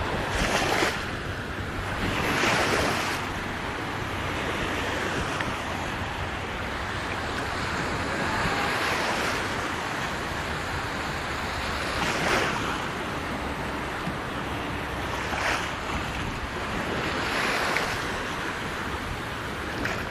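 Water splashing and sloshing, with wind buffeting the microphone; a few louder splashes rise out of the steady rush at irregular intervals.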